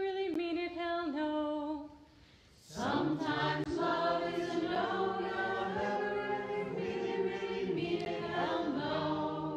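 A cappella singing. A woman's voice ends a phrase with a step down in pitch and stops. After a short pause, a held chord of several voices sings to the end with only small shifts.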